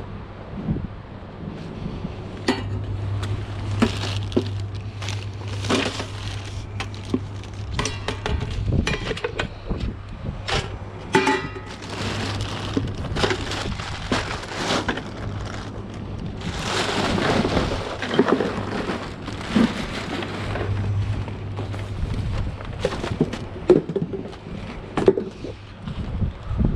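Rummaging through a pile of dumped rubbish: a long run of knocks, clinks and clatters of hard objects being shifted, with rustling, over a steady low hum that fades out near the end.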